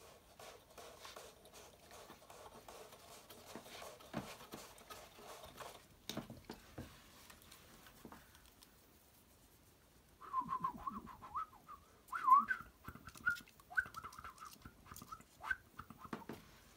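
Faint rustling and light knocks of a hand-cranked paper-and-cardboard panorama scroll and puppet being handled. About ten seconds in, a run of short, wavering high chirps and squeaks, louder than the rustling, sets in and lasts several seconds.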